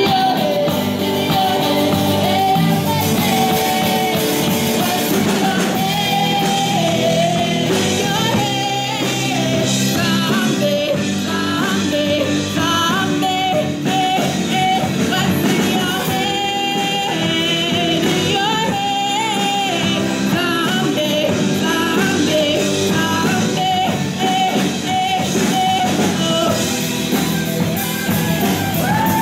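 Live rock band: a girl singing lead over electric guitars and a drum kit, playing steadily without a break.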